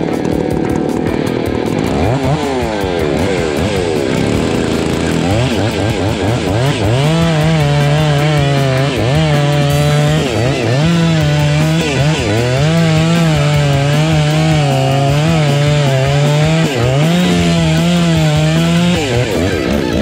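Gas chainsaw revving up and down, then running hard with its pitch dipping and recovering about every second or so, cutting off shortly before the end. Guitar music plays underneath.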